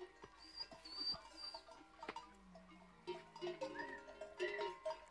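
Bells on a herd of walking camels clinking irregularly, with a few short high-pitched calls in between.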